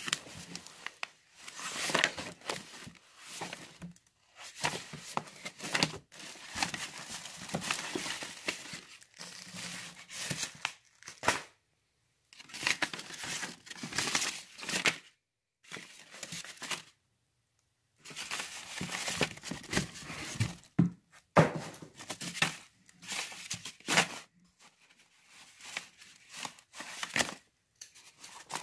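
A stack of comic books being handled and shuffled through, paper covers and a plastic bag rustling and crinkling in irregular bursts, with a pause of about a second just past the middle.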